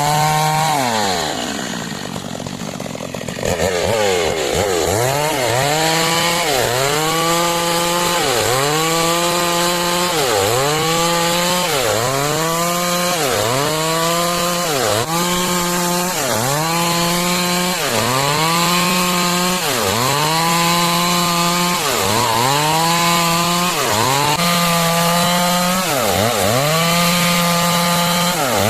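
Stihl MS 382 two-stroke chainsaw at full throttle cutting lengthwise through timber to make planks. The engine pitch sags and recovers about every second and a half as the chain loads in the wood. Early on the revs fall away and the sound drops for about two seconds, then it climbs back to full speed.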